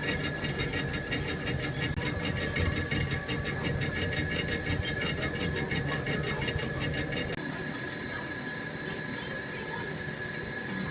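2006 Haas SL20L CNC lathe running under power: a steady machine hum with a constant high whine and a rapid, even ticking. About two-thirds of the way in, the low rumble and the ticking drop away, leaving the whine and a lighter hum.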